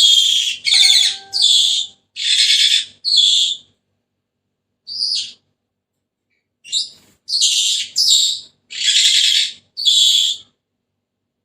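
Senegal parrot giving a series of shrill, harsh calls, each a fraction of a second long. They come in two bouts separated by a pause of about three seconds.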